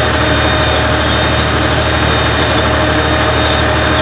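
Tractor engine running steadily under load, heard from inside the cab while it pulls a seed drill during sowing.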